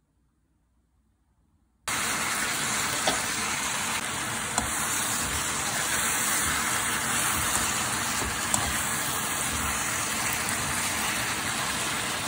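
Pork and onions sizzling steadily as they are stir-fried in a frying pan, with a few sharp clicks of the utensil against the pan. The sizzle starts suddenly about two seconds in.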